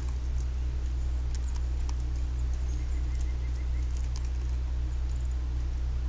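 Pileated woodpecker pecking at a wire-mesh suet feeder, irregular sharp taps and clicks over a steady low hum.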